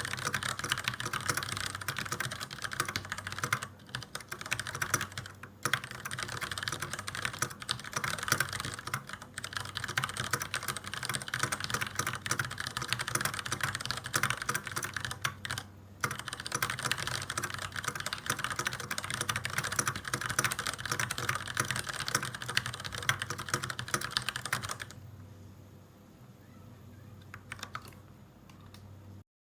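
Varmilo VA87M mechanical keyboard with Cherry MX Brown switches and PBT keycaps being typed on quickly, in a dense run of keystrokes. The typing stops about 25 seconds in, leaving only a few faint taps before the sound cuts off.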